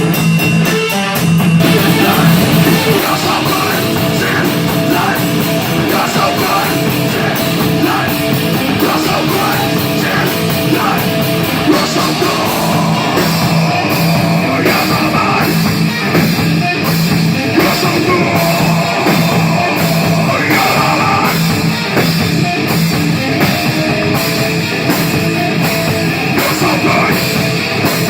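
Loud heavy rock band playing, with electric guitar and drums. Cymbals are struck at a steady beat, most densely in the second half.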